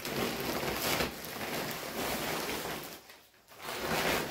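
Rustling plastic packaging, handled in two spells with a short lull about three seconds in.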